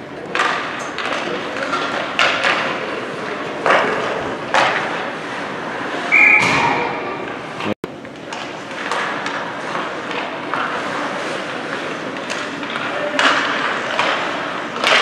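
Youth ice hockey play in a rink: repeated hard knocks and thumps of sticks and puck against the ice and boards, echoing in the hall, with a short whistle blast about six seconds in.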